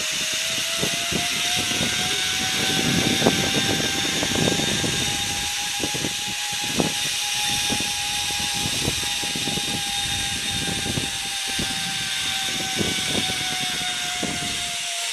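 Zipline trolley pulleys running along a steel cable at speed, a steady whine that rises slightly in pitch at first and sinks near the end. Wind buffets the microphone in irregular low gusts throughout.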